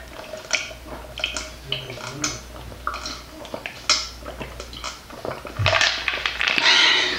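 A person gulping and swallowing a drink from a cup, with short wet clicks of the mouth and throat. About five and a half seconds in comes a louder, breathy noise that lasts to the end.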